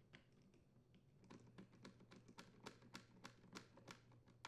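Faint, light clicking from parts of a hedge trimmer's small engine being worked by hand. A few scattered clicks come first, then about a second in an even run of sharp clicks, roughly three or four a second, like a ratchet turning.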